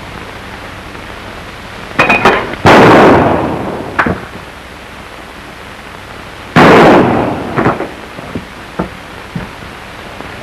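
Two loud gunshots about four seconds apart, each dying away over about a second, preceded by a few sharp clicks and followed by scattered light knocks, over the steady hiss of an old film soundtrack.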